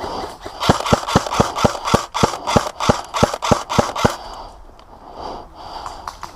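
Scar-L airsoft rifle firing a rapid string of about fifteen single shots, roughly four a second, stopping about four seconds in.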